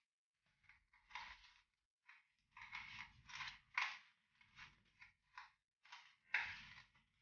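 A spatula stirring granulated sugar and honey in a plastic tub: irregular gritty scrapes against the tub's sides, broken by short pauses.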